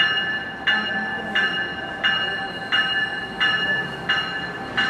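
Railroad warning bell ringing steadily, about seven even strikes, one every 0.7 seconds or so. Each strike rings on and fades before the next, over a low rumble from the approaching commuter train.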